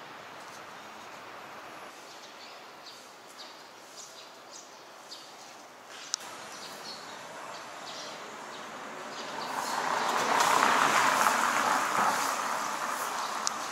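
Quiet city street ambience with scattered faint ticks and a sharp click about six seconds in. From about nine seconds in, a passing vehicle swells loud for a few seconds and fades near the end.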